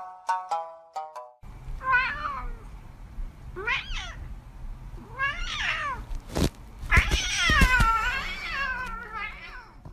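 A cat meowing over and over, about five meows a second or two apart, one near the end long and drawn out.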